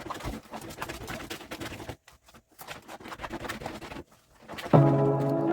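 Light scratching and clattering handling noises, broken by two short pauses, then music starts near the end.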